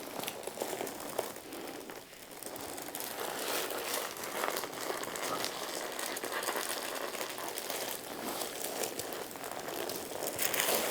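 Paper cover on a treatment table crinkling under a leg being massaged, an uneven crackling rustle that grows a little louder about three seconds in.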